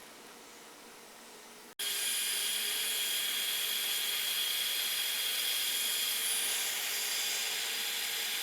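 Heat gun running steadily, a loud hiss of blown air with a high whine from its fan, shrinking solder-sleeve wire connectors. It starts abruptly about two seconds in, after faint room tone.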